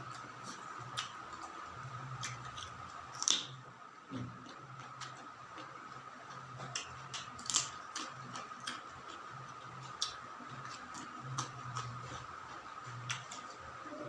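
Close-up eating sounds: chewing with irregular wet clicks and crunchy snaps as raw vegetables and food are bitten and chewed, over a steady faint high hum.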